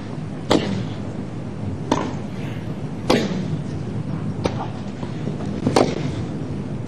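Tennis rally: a ball struck back and forth by rackets, with about five sharp hits spaced roughly a second and a quarter apart, each with a brief ring of the strings, over a steady background hiss.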